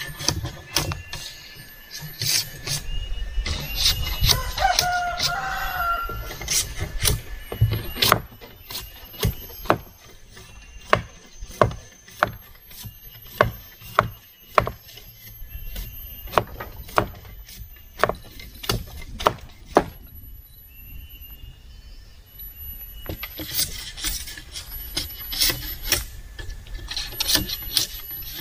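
Repeated sharp scraping strokes of a blade on split bamboo as the strips are cleaned and smoothed, coming about once a second. A rooster crows once about five seconds in.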